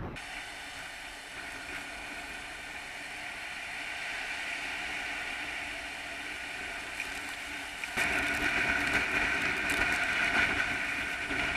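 Heavy typhoon surf breaking against a sea cliff: a steady roar of pounding waves and wind-driven spray, which jumps louder about eight seconds in.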